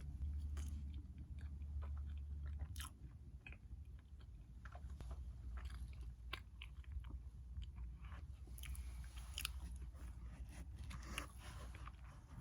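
Close-miked eating of a chocolate mochi roll cake: soft chewing with many small, irregular mouth clicks and smacks, over a low steady hum.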